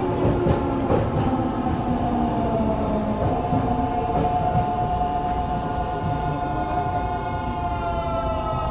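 Yokohama Blue Line 3000A-series subway car running, its Mitsubishi GTO-VVVF inverter and traction motors whining in several steady tones that shift slowly in pitch, over a steady rumble of wheels on rail.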